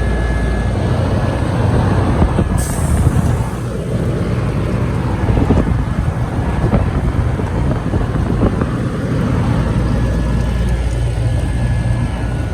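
Trane XB10 central air conditioner condensing unit running steadily: the compressor's low hum under the rush of its condenser fan.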